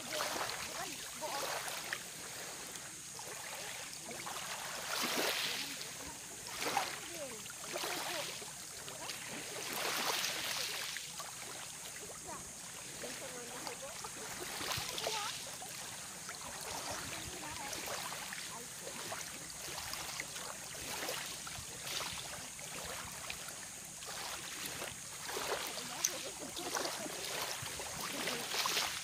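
Small waves lapping at the edge of a shallow sandy shore: a soft wash that swells and fades every second or two.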